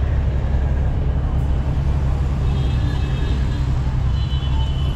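Road traffic: a steady, heavy low rumble of vehicles, with faint voices in the background.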